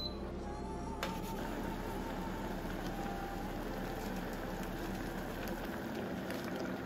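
Background music ends with a click about a second in. A steady hiss of cooking follows, like a pot at the boil.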